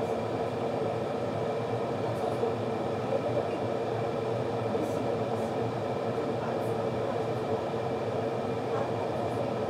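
Glass electric kettle heating water: a steady rumbling hiss as small bubbles form on the bottom, before the water comes to a full boil.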